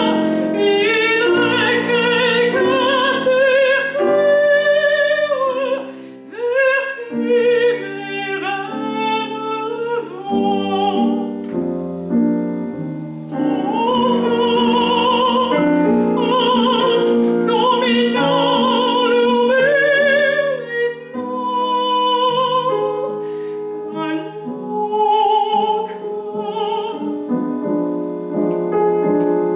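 Female classical singer singing with operatic vibrato, accompanied by a grand piano.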